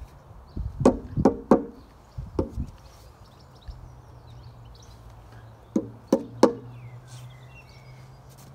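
Sharp knocks in quick groups of three, a plastic cricket bat tapped against the paving, with a low steady hum setting in a few seconds in.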